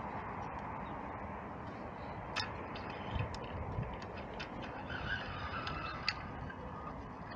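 Steady outdoor wind noise with a low background rumble, broken by a handful of light clicks and a brief faint high chirping about five seconds in.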